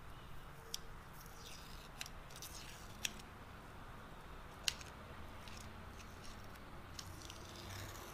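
Blue painter's masking tape being torn off and pressed by hand onto the vise body to mask it for paint: faint scratchy tearing rasps and a few sharp clicks over a low shop hum.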